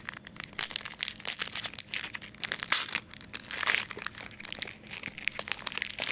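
Rapid, irregular crinkling and rustling of a trading-card pack wrapper, with cards being handled.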